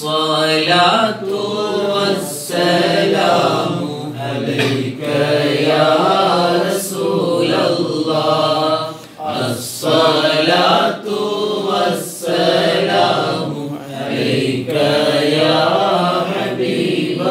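A man sings alone without accompaniment: a devotional chant in praise of a saint, with long held, wavering notes broken by short pauses for breath.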